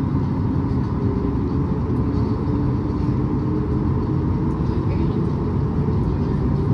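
Cabin rumble of a Boeing 737 MAX 8 taxiing, its CFM LEAP-1B engines at low taxi power: a steady, even low rumble with a faint hum.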